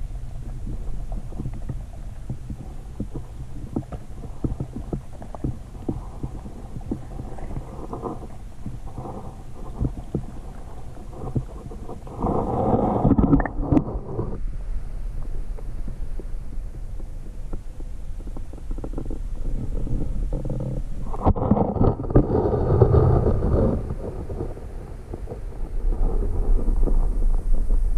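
Muffled underwater rumble with scattered small knocks, picked up by a camera submerged in a pond. It swells louder twice for about two seconds, about twelve seconds in and again about twenty-one seconds in.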